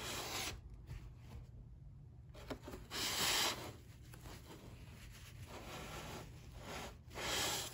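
Rolled bolts of kimono fabric rustling and rubbing against each other and the cardboard box as they are handled, with three louder swishes: near the start, about three seconds in, and near the end.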